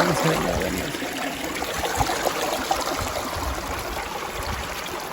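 Small mountain stream running and trickling over rocks, a steady rush of water, with a dull knock about two seconds in.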